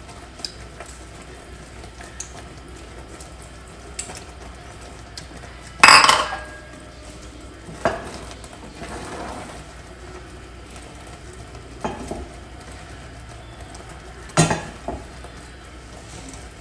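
Wooden spoon stirring thick coconut-cream and sugar syrup in a pot, with scattered sharp knocks of the spoon against the pot: the loudest about six seconds in, others near eight, twelve and fourteen and a half seconds.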